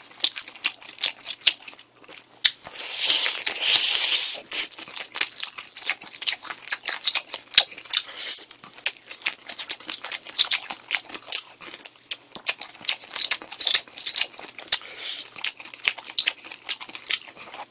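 Close-miked eating of a sauced fried chicken drumstick: irregular wet chewing, lip smacks and small crunches, with a louder stretch of rustling, tearing noise about three seconds in.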